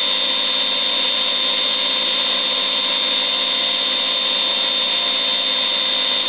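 CNC vertical machining centre running: a loud, steady, high-pitched whine over several fainter steady hum tones, with no change in pitch or level.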